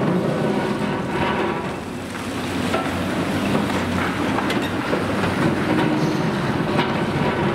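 Demolition excavator's diesel engine running while its hydraulic crusher breaks concrete off a building, with scattered cracks and clatter of falling rubble.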